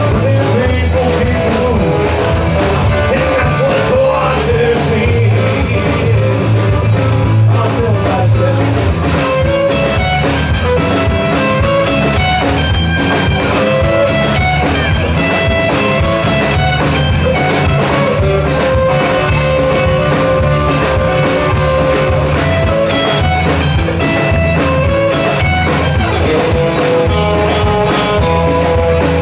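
Live band playing loud and steadily: drum kit keeping the beat under electric bass, electric guitar and strummed acoustic guitar.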